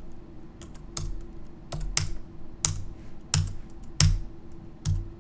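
Computer keyboard keystrokes: about nine separate key presses at irregular intervals, some in quick pairs, as GDB step commands are typed and entered. A faint steady hum runs underneath.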